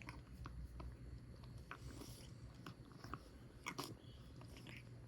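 Faint, irregular smacking clicks from a cat's mouth, with a louder cluster of clicks about three-quarters of the way through, over a low steady hum.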